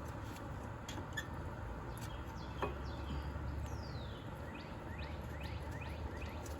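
A bird chirping a quick run of short, falling high notes over a low steady hum, with a single light metallic click about two and a half seconds in.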